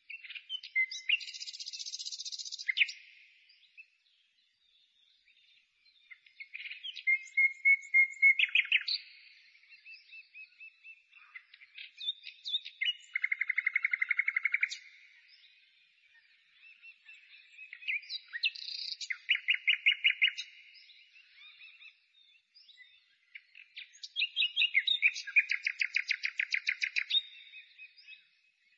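A songbird singing in phrases of about three seconds, each a run of chirps and fast repeated trilled notes, with short pauses between phrases, five phrases in all.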